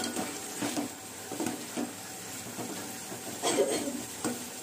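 Steel spoon stirring chopped tomatoes and masala paste in a stainless steel pot, scraping against the metal at irregular intervals over a steady frying sizzle. The loudest scrape comes about three and a half seconds in.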